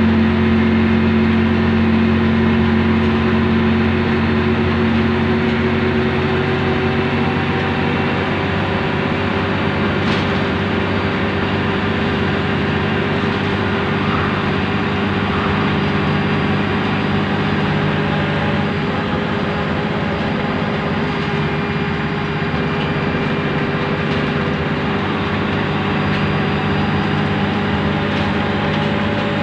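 Scania N113DRB double-decker bus's 11-litre six-cylinder diesel engine running under way, heard from inside the passenger saloon. Its note shifts as the bus changes speed: a strong low hum drops away about seven seconds in and comes back near the end.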